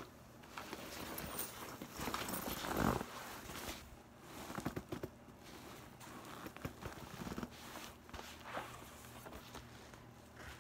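A zippered fabric bag handled close to the microphone: irregular rustling, zipper scrapes and small knocks as a booklet is pulled out. The loudest moment is a bump and rustle about three seconds in.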